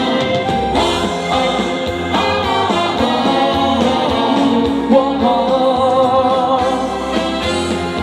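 Live band music with singing: an upbeat pop-trot song played through the stage sound system between verses.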